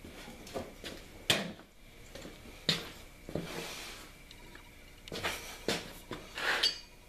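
Metal tools and steel being handled at a blacksmith's anvil: several sharp metallic knocks and clanks at irregular intervals, with a rougher scraping clatter near the end.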